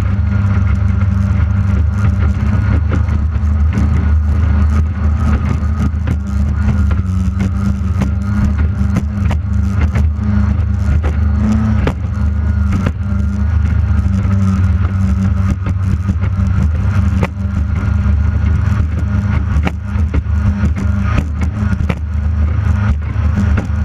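J Hydro racing hydroplane's engine running hard at a steady pitch, picked up by a camera on the boat's deck, with frequent sharp knocks as the hull slaps across the chop.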